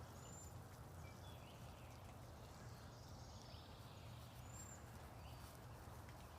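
Near silence: faint outdoor ambience with a low hum and a few short, faint high chirps.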